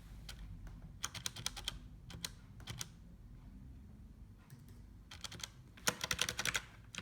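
Typing on a Corsair K70 mechanical keyboard with Cherry MX Brown switches: quick runs of keystrokes in short bursts with pauses between, the last burst near the end the loudest.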